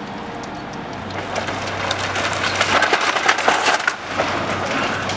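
Wooden building frame and siding cracking and splintering as the structure is torn down. Sparse at first, it builds from about a second in to a dense run of cracks and snaps, over a steady low hum.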